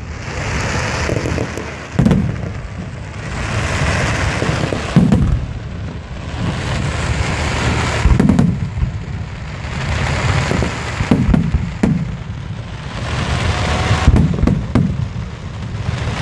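Aerial fireworks bursting with deep booms every two to three seconds, and a continuous crackle between the bursts.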